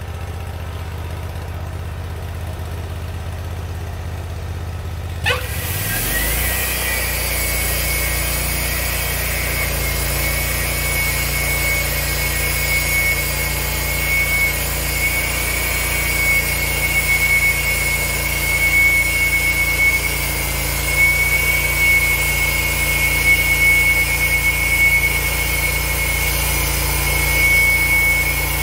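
Portable band sawmill: the engine idles, then about five seconds in revs up as the band blade engages. The blade runs with a steady high whine over the engine hum while the saw head cuts along the log, and right at the end the engine and blade begin to wind down.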